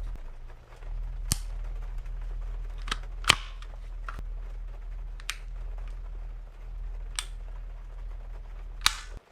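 Action Army AAP-01 gas-blowback airsoft pistol giving six sharp, metallic cracks, irregularly spaced one to two seconds apart. A steady low hum runs underneath and cuts off suddenly near the end.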